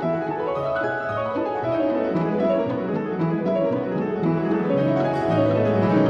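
Background classical piano music with quick runs of notes that climb and fall twice.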